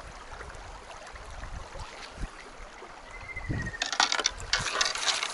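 Shallow river running over stones. About four seconds in, close, louder splashing in the water as a landing net is dipped into the shallows.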